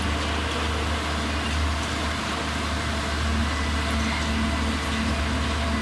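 Concrete mixer pump truck's engine running steadily: a constant deep hum with a hiss of machine noise above it.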